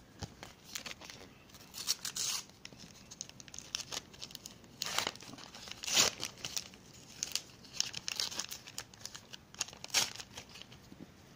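Sticker pack wrapper being torn open and crinkled by hand: a string of short, sharp crackling rips, the loudest about six seconds in and again near the end.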